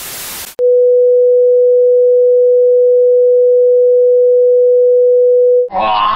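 A short burst of static hiss, then a loud steady electronic beep tone at one pitch, held for about five seconds and broken off near the end by a voice.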